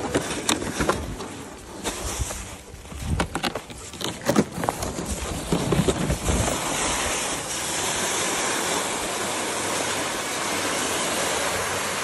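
Footsteps crunching on snow with scattered knocks. From about six seconds in comes the steady scraping hiss of a loaded sled dragged over crusty, pebbly snow on a frozen lake.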